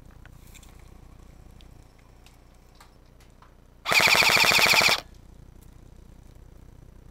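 An airsoft electric gun firing one full-auto burst of about a second, a fast buzzing rattle of shots at roughly twenty a second, starting just under four seconds in.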